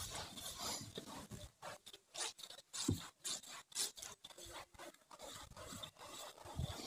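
Small hand brush scrubbing a soapy rubber camper roof in quick, irregular back-and-forth strokes, with one dull knock about three seconds in.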